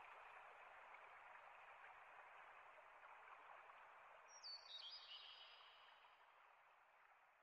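Near silence: a faint steady hiss that slowly fades away, with one brief high chirp about four and a half seconds in.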